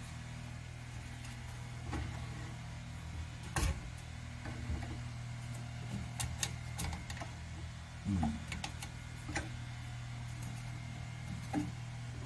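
Wood lathe motor running with a steady low hum, with a few light knocks and taps from handling at the lathe, the clearest about a third of the way in.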